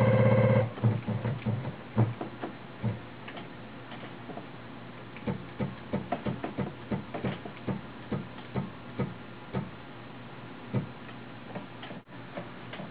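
Taig CNC mill's stepper motors whining briefly as the Z axis moves down, then a long series of short, irregular clicks as the tool is stepped down in small jogs toward a touch-off gauge to set Z zero.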